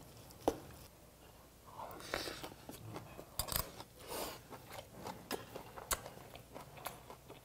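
Close-up chewing of a mouthful of bibimbap, with soft crunches from the crisp vegetables and a few sharp clicks.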